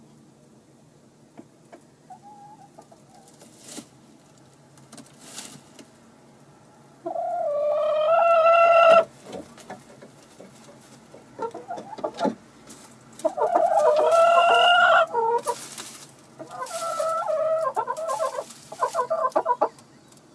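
Chicken calling: two long drawn-out calls of about two seconds each, then a quick run of short clucks near the end.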